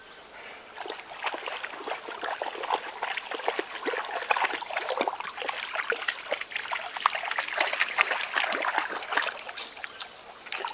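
Shallow river water splashing and sloshing irregularly, as of wading through it, starting about a second in and continuing.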